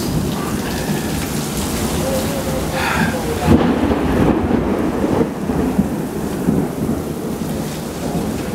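Torrential rain pouring down in a severe thunderstorm, with thunder rumbling; the loudest moment comes suddenly about three and a half seconds in.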